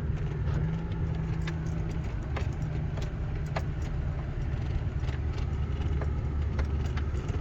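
A vehicle engine running steadily with a low hum, with scattered light clicks and rattles over it.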